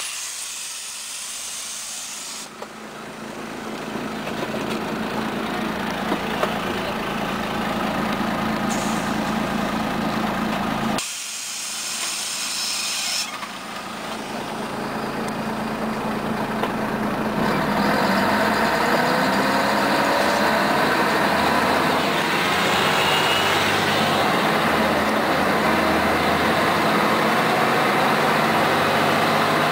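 Interior sound of a 1992 Scania CN113ALB articulated city bus and its six-cylinder diesel, running quietly at a stop for the first half. From about halfway the bus pulls away, and the engine grows louder with a rising whine as it accelerates.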